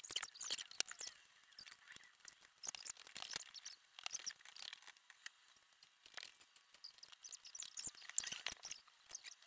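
Scattered light clicks, clinks and high squeaks as metal mini BMX bike parts are handled and the handlebars are worked into the stems during assembly.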